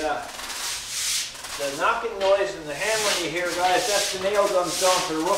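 Stiff push broom scrubbing a wet, soapy concrete floor, the bristles scraping in repeated strokes about once a second. A wavering pitched sound runs alongside from about a second and a half in.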